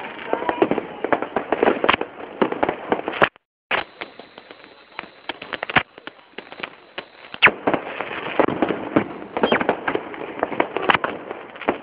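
Fireworks going off in quick succession: many sharp bangs and crackles overlapping one another, thinning out for a few seconds around the middle and thickening again near the end. The sound cuts out completely for a moment a little over three seconds in.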